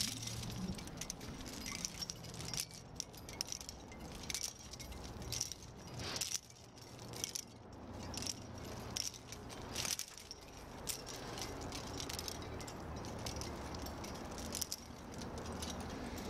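Carabiners and cams on a climbing harness gear rack clinking and jangling as the climber moves, in irregular metallic clinks, over a low rumble.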